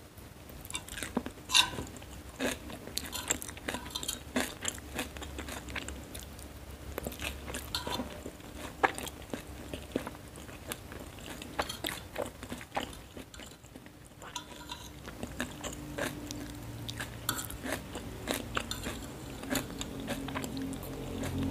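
Close-miked eating sounds: chewing fried noodles, with many sharp crisp crunches and clicks of a fork against the plate.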